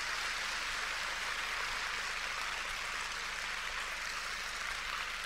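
Large audience applauding in a big hall: a steady, even patter of many hands clapping.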